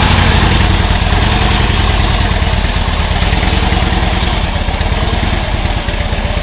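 Harley-Davidson Electra Glide's V-twin engine running at idle, a steady low pulsing that eases a little in loudness toward the end.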